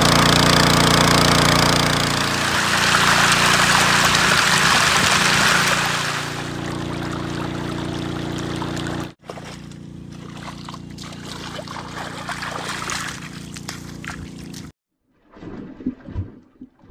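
Portable engine-driven water pump running with a steady low hum while its outlet water gushes out, draining the pond. The water is loud for the first six seconds or so, then quieter. The sound cuts off suddenly about nine seconds in and again near fifteen seconds.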